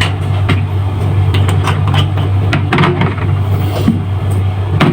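A steady low hum, with a few scattered light clicks and knocks.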